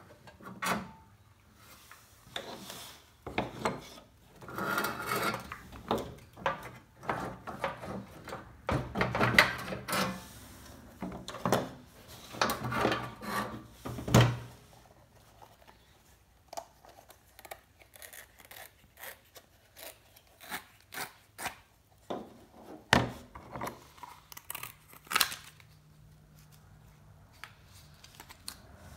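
Hands pulling the wheels and axles off an old steel Tonka toy dump truck: repeated rubbing and scraping of rubber tires and metal axles. After that come scattered light clicks and knocks as the parts are handled, and the tires are worked off their hubs.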